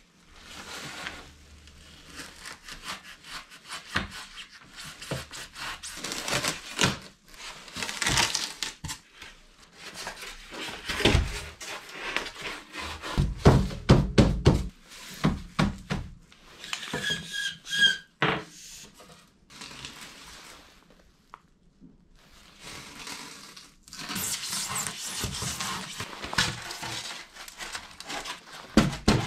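Wooden boards being handled and worked: a busy, irregular run of knocks, clicks and scraping, with heavier thuds about halfway through and longer rubbing or sawing noise near the end.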